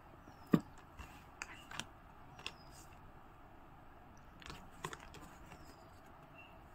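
Tarot cards handled on a cloth-covered table: a few light taps and clicks as cards are touched, slid and placed. One sharp click about half a second in is the loudest, with smaller ones clustered in the first few seconds and again a little before the end.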